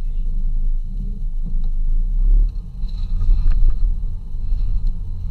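Jeep Cherokee KJ crawling slowly up a sandy, rutted track, heard from inside the cabin: a low, uneven engine and drivetrain rumble that swells and dips, with a few faint knocks.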